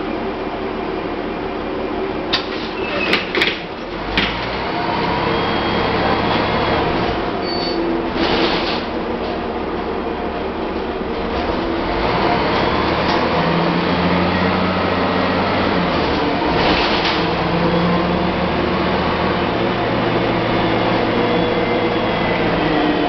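Interior of an IVECO TurboCity 480.12 city bus: the doors close with a few sharp knocks about two to four seconds in, then the engine pulls the bus away from the stop, its note rising and falling as it picks up speed.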